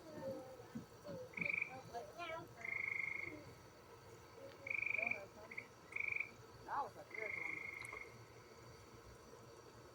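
Frogs calling: short, high, buzzy trills repeated about six times, none ending in the last two seconds.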